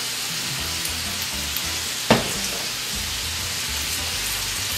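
Omelet of egg substitute and linguiça frying in olive oil in a pan, a steady sizzling hiss, with one short knock about two seconds in.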